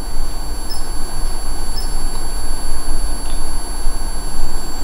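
A ghost-hunting detector gives a steady, high-pitched electronic tone, with two short chirps in the first two seconds, over a loud low hum. The investigator takes the detector going off as a spirit's response.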